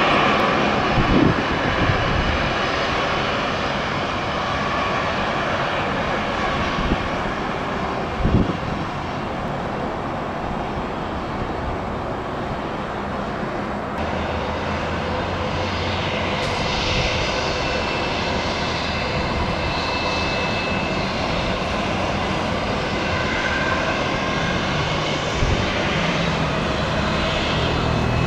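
Airbus A320-232 jet engines running with a steady roar, loudest at the start, with two short low thumps in the first few seconds.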